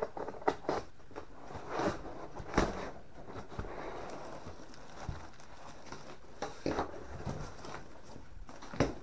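Long cardboard shipping box being handled and its lid opened by hand: scattered scrapes, knocks and rustles of cardboard, with the sharpest knocks about two and a half seconds in and near the end.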